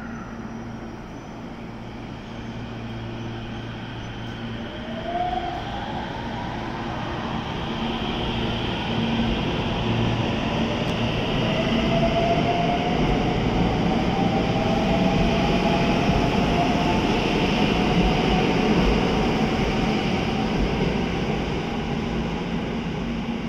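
JR West 521 series electric multiple unit pulling away: a steady hum at standstill gives way, about five seconds in, to an inverter and traction-motor whine that rises in pitch as the train gathers speed. Wheel and running noise swells as the cars pass, then eases off near the end.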